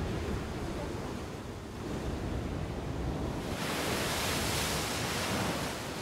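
Heavy ocean swell breaking over a rocky slab: a low rumble of surf, then from about halfway a loud hissing rush of spray and foaming water washing across the rock.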